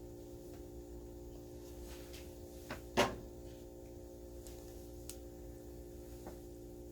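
A single sharp knock about three seconds in, with a small click just before it, over a steady low hum.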